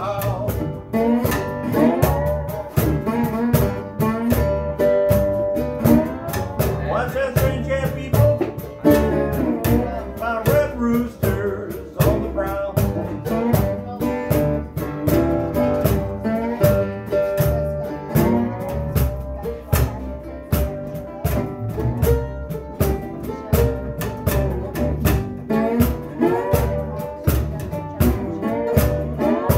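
Live acoustic blues band playing: upright bass, a cajon keeping a steady beat, and acoustic guitar with other plucked strings.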